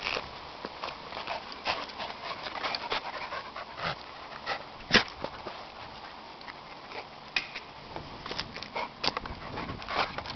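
Small dogs panting and sniffing close up, a run of short, irregular puffs and snuffles. One sharper puff about halfway through is the loudest.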